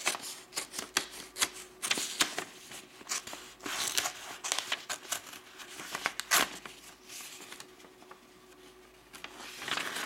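Scissors snipping through a folded sheet of printer paper in a series of short cuts, with the paper rustling. The cutting eases off about seven seconds in and picks up again near the end.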